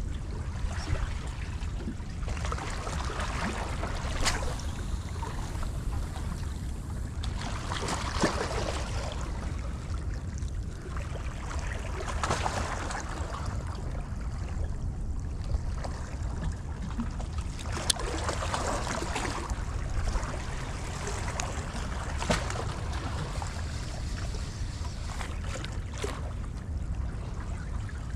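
Small waves washing against the rocks at the water's edge, a rushing wash swelling every three to four seconds over a steady low rumble, with a few sharp clicks.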